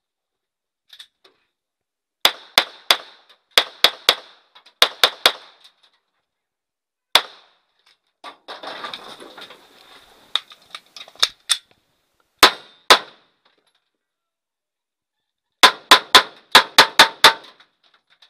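Pistol shots fired right at the microphone, in quick pairs and triplets with short pauses, then a fast string of about seven shots near the end. A shuffling, clattering noise fills a couple of seconds in the middle.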